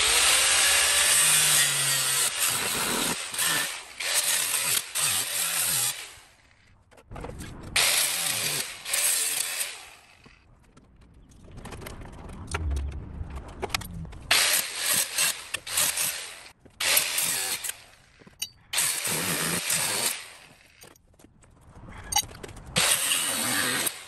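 Small handheld power tool run in about five bursts of a few seconds each, cleaning out corrosion from a car's front turn-signal lamp housing, with short pauses between runs.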